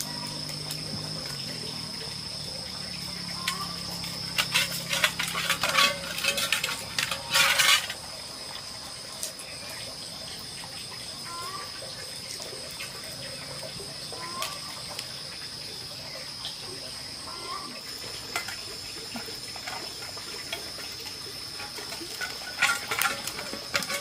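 Insects chirring as a steady high drone, with a cluster of sharp crackling clicks about four to eight seconds in and a few more near the end.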